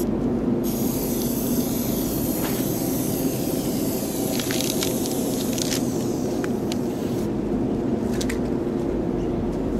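Aerosol spray-paint can hissing steadily from about half a second in until about seven seconds in, with a few short clicks around the middle, over a steady low rumble.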